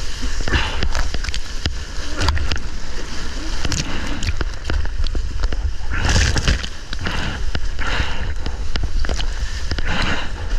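Surfboard riding a small wave, heard from a GoPro on the board: water rushing and splashing against the board in repeated bursts, loudest about six seconds in, over a steady low rumble of wind and water on the microphone.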